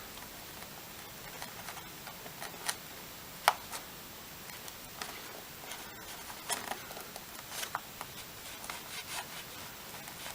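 Insulation being stripped and cut from a thick red battery-lead wire with a hand tool: scattered small clicks and snips, the sharpest about three and a half seconds in.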